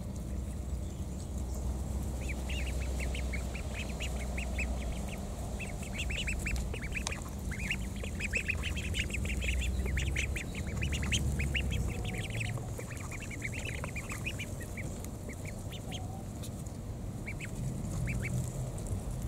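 Indian Runner ducklings, about a month old, peeping: many short high-pitched calls in quick runs, thickest through the middle and thinning out near the end, over a steady low rumble.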